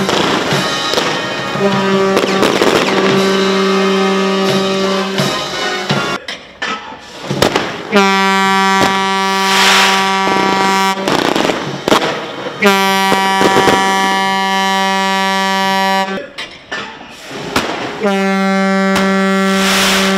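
A ship's horn sounding several long, steady blasts of about three seconds each. Bangs and bursts of confetti and smoke cannons fire between and over the blasts, marking the launch.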